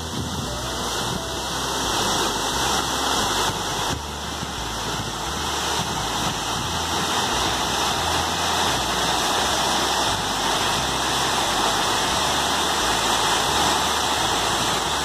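Steady rushing of a waterfall: a wide cascade of many small falls pouring over a rock ledge into a pool.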